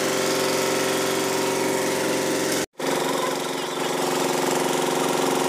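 Generator engine running steadily, a constant drone with an even stack of tones. The sound drops out for a split second just under three seconds in, then carries on unchanged.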